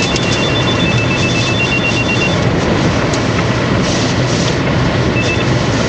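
Steady, loud noise of hurricane wind and rain around a running vehicle, with a rapid electronic beeping chime for about the first two seconds and a short burst of the same beeping near the end.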